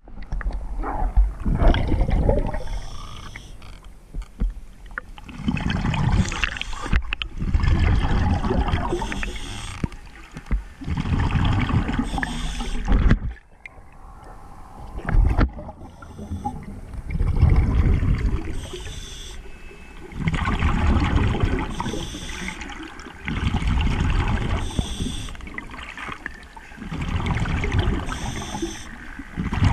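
Underwater recording of a scuba diver breathing through a regulator: bubbly exhalations surge about every three seconds, with quieter hiss between.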